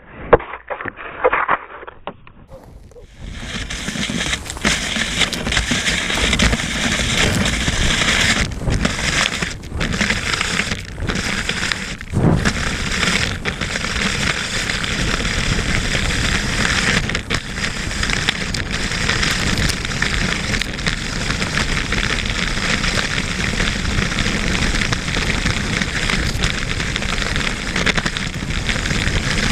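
Salomon cross-country skis gliding fast over packed snow, with a steady rushing hiss of wind buffeting the camera microphone; it sets in about three seconds in after a short muffled stretch.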